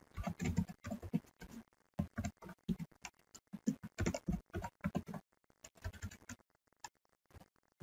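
Typing on a computer keyboard: a quick, irregular run of key clicks that thins out after about five seconds, leaving a few stray clicks near the end.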